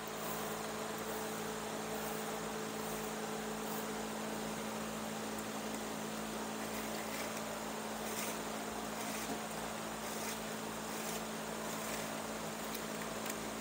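Steady low electrical hum, with faint scratchy rustles now and then as a long strand of chair cane is drawn through the woven cane.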